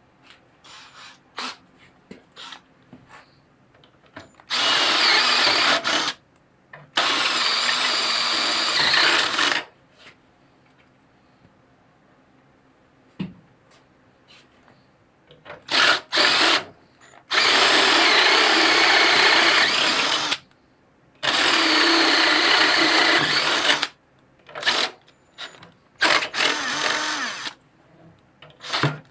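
Cordless drill boring into the steel frame brackets of a garden tractor, in four runs of two to three seconds each with pauses between, plus a few short bursts on the trigger.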